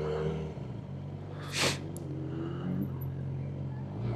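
Suzuki GSX-R600 inline-four sport bike engine running steadily at low, constant revs. A brief rushing sound comes through about a second and a half in.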